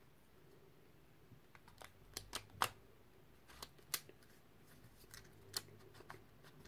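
Faint, irregular plastic clicks of a magnetic QYToys Skewb puzzle being turned by hand, about a dozen spread unevenly, with the densest run of turns between about one and a half and four seconds in.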